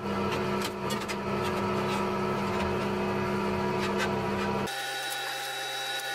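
Steady machine hum made of several held tones, which drops suddenly to a quieter, lower hum about four and a half seconds in. Faint clinks of sheet steel being handled sound over it.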